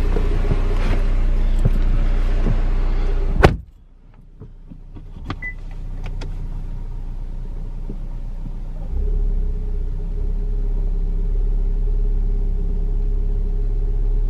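Cadillac ATS turbocharged 2.0-litre four-cylinder idling just after a cold start, through a catless downpipe, heard as a steady drone. A car door shuts sharply about three and a half seconds in. After that the idle is heard muffled from inside the cabin, and the low drone gets a little louder later on.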